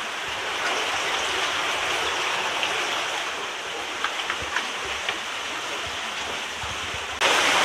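Cave stream running over rocks, a steady rushing hiss of water, with a few light clicks about four to five seconds in. Near the end the water suddenly gets louder.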